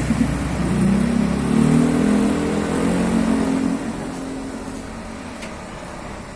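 A motor vehicle's engine running close by and pulling past, its note rising a little, then dropping away about four seconds in to a quieter background rumble.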